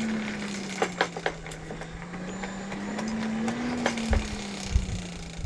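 Hand-cranked forge blower whirring, its pitch slowly rising and falling as the crank speeds up and slows, blowing air into the coal fire to heat steel for annealing. A few sharp clicks about a second in and some low knocks near the end.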